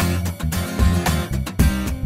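Funk background music: strummed guitar over bass and a steady drum beat.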